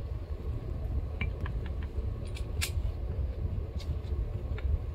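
Footsteps crunching on rocky, gravelly ground, a scatter of short clicks and scuffs, over a steady low rumble on the microphone.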